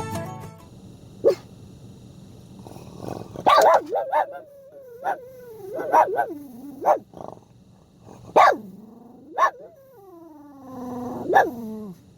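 Dog barking in short sharp yelps, about eight of them, with whines in between that slide down in pitch.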